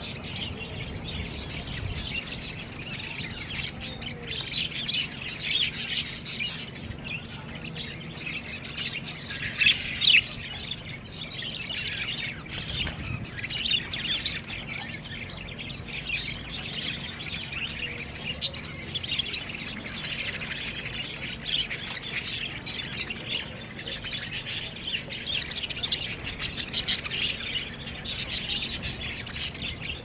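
A flock of caged budgerigars chirping and chattering nonstop, many birds at once, with a few louder calls about a third of the way in. A steady low hum runs underneath.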